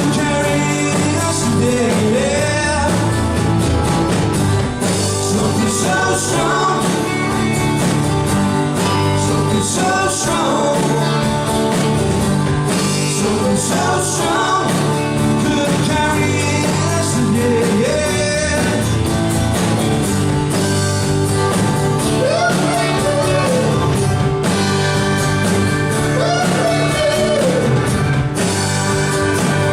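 Live rock band playing with a singer, guitar and a steady beat.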